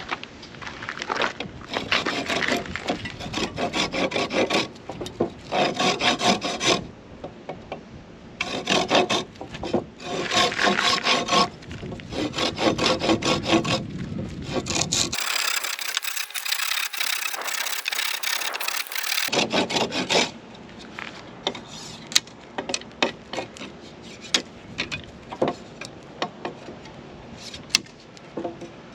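Rhythmic rasping strokes of a hand tool at work in runs for the first half, turning to scattered light clicks and taps in the last third.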